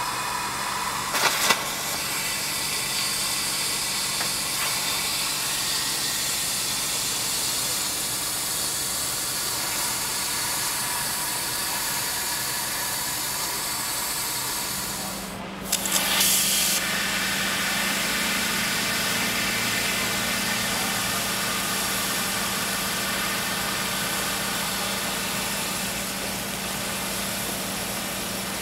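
Steady rushing hiss with an engine running underneath. There are a couple of sharp knocks about a second in, and about halfway the sound briefly drops away and comes back with a short louder burst, after which the engine hum holds steady.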